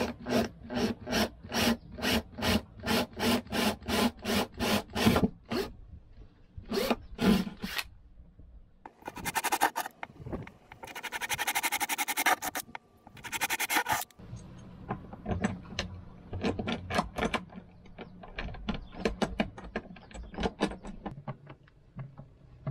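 Cordless drill boring into fibreglass, the bit worked back and forth in a rasping rhythm of about three strokes a second, with a few seconds of steady drilling in the middle.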